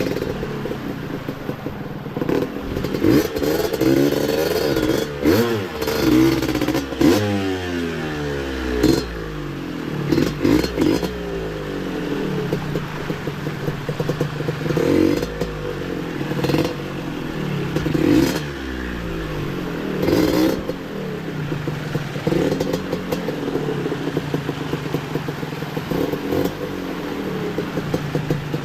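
Yamaha DT125 two-stroke single-cylinder engine running and being revved up and down again and again, its pitch rising and falling in short bursts between steadier running.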